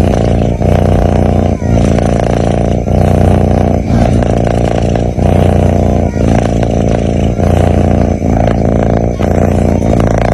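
A sleeping cat snoring: a loud, continuous rumble that breaks briefly about once a second with each breath.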